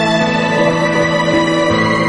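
Background music: slow, sustained chords with long held notes.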